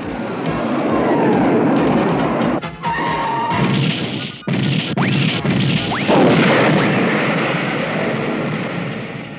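Cartoon sound effects of robot soldiers tumbling off a cliff: a falling whistle, then a run of crashing and smashing with a few quick rising whistles, over background music.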